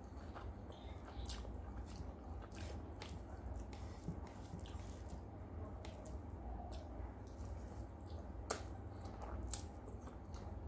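Close-miked eating sounds: wet chewing and mouth smacks, with the squish of steamed rice being mixed and pressed by fingers on a plate. Short sharp clicks come irregularly throughout, the sharpest about eight and a half seconds in, over a low steady hum.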